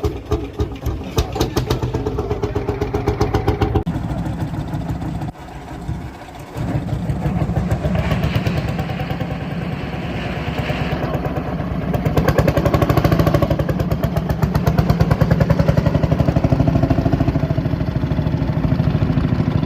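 Lanz Bulldog-type single-cylinder hot-bulb tractor engine running with a steady, evenly spaced exhaust beat. It drops back briefly about five seconds in, then picks up again and runs louder through the second half.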